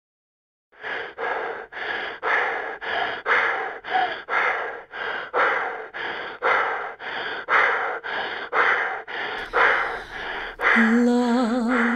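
A person panting hard and fast, about two to three breaths a second, for around ten seconds. Near the end a singing voice comes in.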